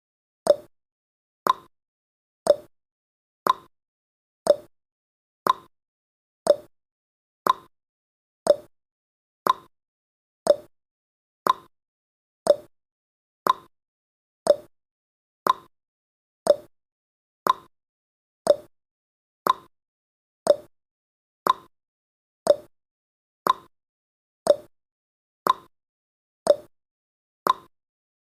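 Countdown timer's tick sound effect: one short, sharp tick every second, evenly paced.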